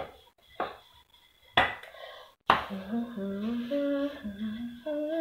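Wooden rolling pin knocking on a floured counter four times while dough is rolled out, then a woman humming a slow melody from about two and a half seconds in.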